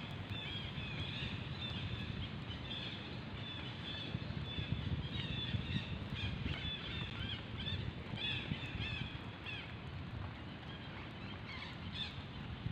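Birds chirping repeatedly in short high calls, thinning out after about nine seconds, over a steady low rumble of outdoor background noise.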